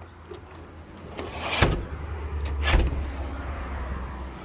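A low rumble that swells from about a second in and drops away near the end, with two sharp knocks about a second apart.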